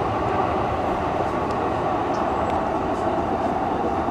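Steady rushing of a swollen river in flood, an even loud noise with no breaks.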